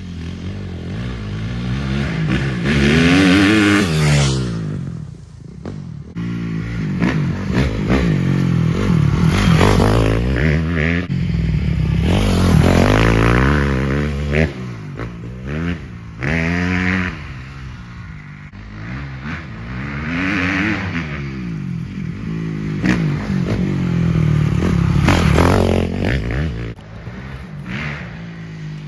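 Honda CRF250R dirt bike's four-stroke single-cylinder engine revving hard and shifting as the bike rides past and away several times. Its pitch climbs and drops over and over, loudest as it comes close.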